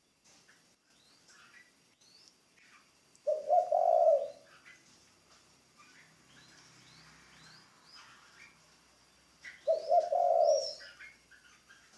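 Spotted dove cooing: two loud coo phrases about six seconds apart, one a few seconds in and one near the end. Small birds chirp faintly throughout.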